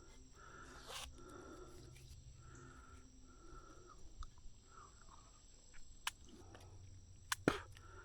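Insects calling in a steady high-pitched drone, with a lower pulsing call in the first few seconds. A few sharp clicks near the end.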